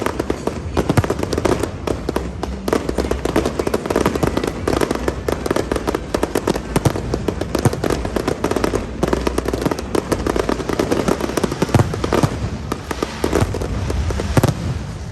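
Aerial fireworks display in a dense, continuous barrage: rapid overlapping bangs and crackling shell bursts.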